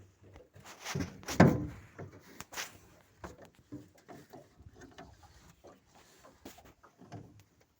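Scattered knocks and clunks at irregular intervals, the loudest about a second and a half in.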